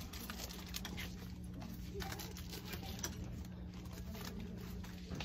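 Shop room tone: a steady low hum with scattered soft clicks and rustling from a handheld phone being moved about.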